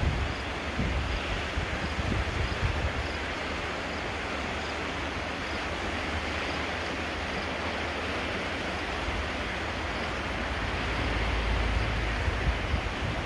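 Steady rush of a whitewater river running through rapids, with wind buffeting the microphone in low gusts that grow stronger near the end.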